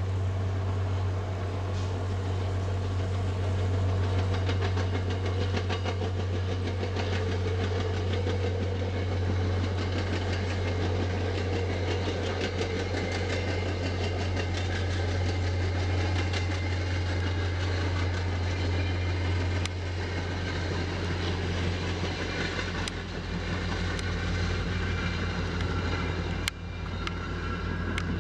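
EMD F40PH-3C diesel locomotive hauling a commuter train past: a steady low diesel drone with rail and wheel noise. A short break comes near the end.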